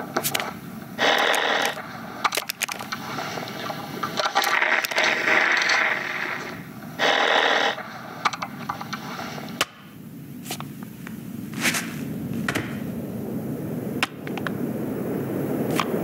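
Animated-film sound effects of scraping and rustling, broken by many sharp clicks and knocks, with two louder bursts about a second in and about seven seconds in.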